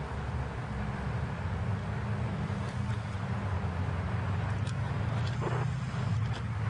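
Steady low rumble of road traffic, with a few faint clicks in the second half.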